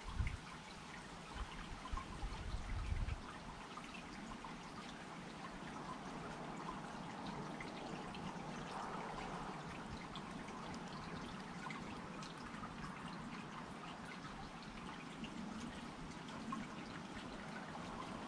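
Small patio water fountain trickling steadily, water splashing into its basin. Low rumbles come and go during the first three seconds.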